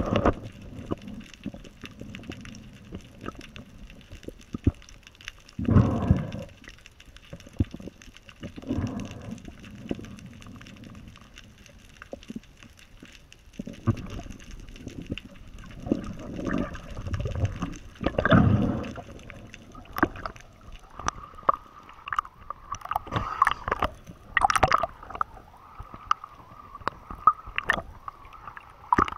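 Water heard through an underwater camera: irregular muffled gurgling and sloshing surges as a diver moves and hauls on a spear line. Sharper clicking and splashing fill the last several seconds as the camera comes to the surface.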